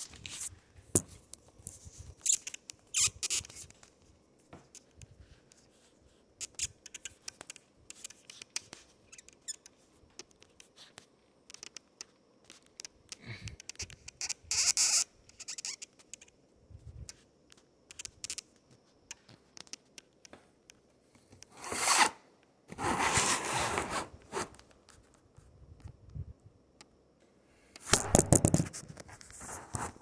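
Irregular rustling, scraping and clicking close to the microphone, like fabric and hands moving against it, with longer rustling stretches about halfway through, around two-thirds in and near the end.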